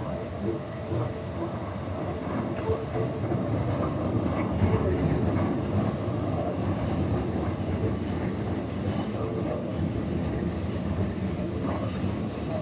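Keikyu New 1000 series eight-car electric train passing over a level crossing, its wheels clattering over the rails, getting louder about four seconds in. A level-crossing bell rings repeatedly, clearest early on.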